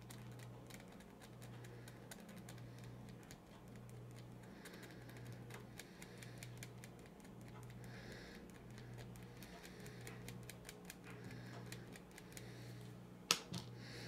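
Faint, irregular small clicks and scratches of a fine metal pick working at a tiny connector pin held in the fingertips, with one sharper click about 13 seconds in.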